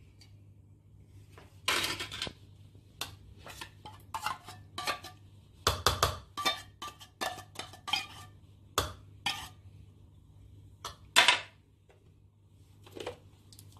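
Metal spoon and fork clinking and scraping against a small tin can and a ceramic plate as cream is scooped out and stirred into a salad: a string of short clinks and scrapes, with a longer scrape about two seconds in and a loud clink near the end.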